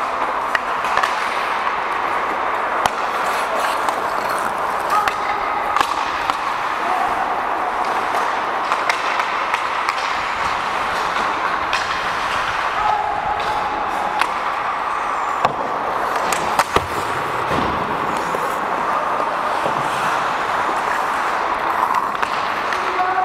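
Ice hockey play: a steady hiss of skating on ice, with scattered sharp clacks of sticks and puck and a few brief distant shouts from players.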